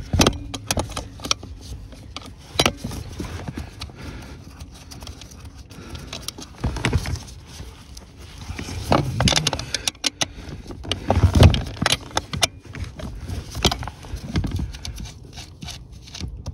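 Irregular clicks, knocks and low thumps of gloved hands and tools working around a car's clutch pedal assembly under the dashboard.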